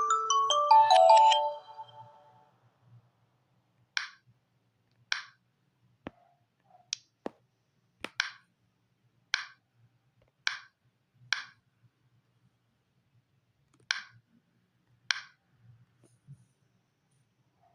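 Samsung Galaxy Tab A9 alarm tone, a marimba-like melody of falling notes, stops about two seconds in. It is followed by about a dozen short, soft clicks at uneven intervals.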